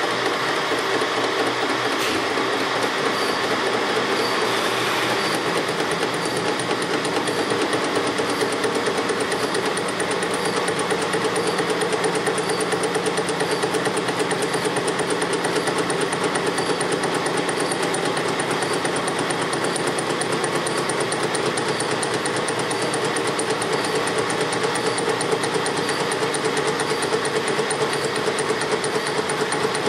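Metal lathe running, spinning a BMW motorcycle connecting rod clamped off-centre while its end is turned to lighten the rod. It makes a steady mechanical running sound with a fast, even rhythm.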